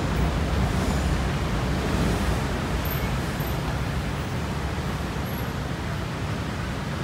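Steady rumble of city road traffic, a continuous noisy hum with no separate events standing out.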